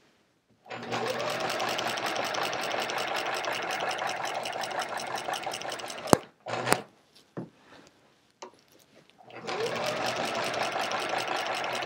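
Sewing machine with a walking foot stitching steadily through the layers of a quilt, in a rapid even run of stitches. It stops about halfway with a couple of sharp clicks, then runs again for the last couple of seconds.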